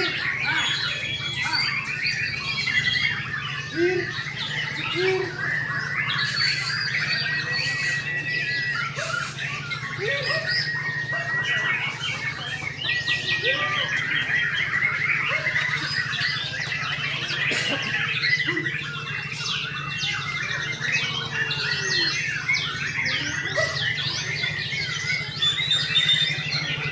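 Several white-rumped shamas singing at once, with fast, varied phrases and harsh chatter overlapping without pause, the continuous vigorous singing that contest birds are judged on. A repeated trilled note runs through long stretches, over a steady low hum.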